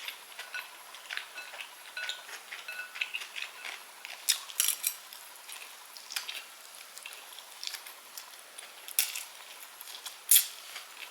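Cutlery clinking and scraping against a plate as food is served and eaten, in a run of light taps and clicks. A few louder clicks come about four and a half seconds in, at nine seconds and at ten seconds.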